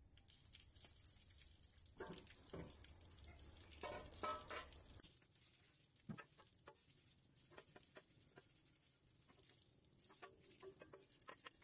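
Wet sponge rubbing along a painted bicycle frame in many short strokes, with water splashing and running and a few light knocks.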